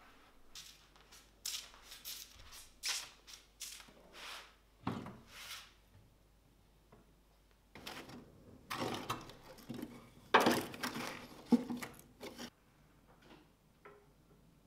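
Firewood being handled and stacked into a wood-burning stove: a run of scrapes and knocks of logs against the stove and each other, with the loudest knocks between about ten and twelve seconds in.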